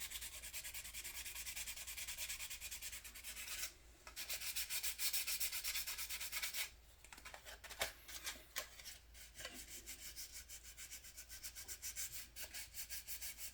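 Wet sandpaper rubbed back and forth in quick short strokes over dried modelling putty on a plastic scale-model car body. The strokes pause briefly twice.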